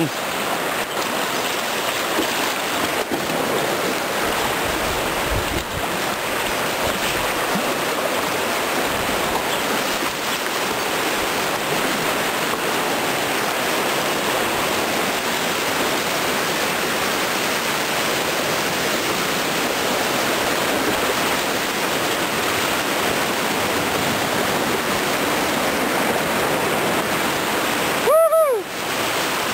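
Whitewater rapids rushing steadily around a raft running a wave train. Near the end, a short pitched sound rises and falls.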